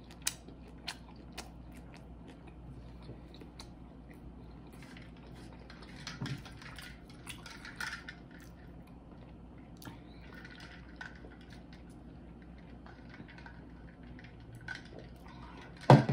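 Quiet eating sounds: faint chewing and mouth noises with scattered small clicks and taps, then a short loud sound right at the end.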